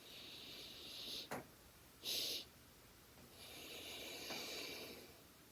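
A woman's deliberate breathing in a breathing exercise: a long soft inhale, a short, sharper extra sniff of breath about two seconds in, then a long slow exhale.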